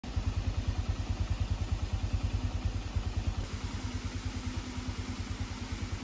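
A small engine running steadily at low speed, a rhythmic low throb of about seven beats a second.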